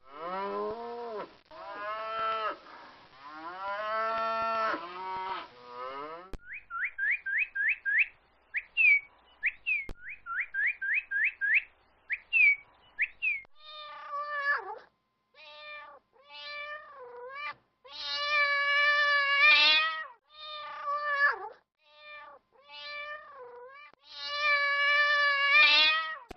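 For the first few seconds, several falling, pitched animal calls. Then a northern cardinal sings runs of quick, rising whistled notes. For the last half, a domestic cat meows repeatedly, some meows drawn out and rising and falling in pitch.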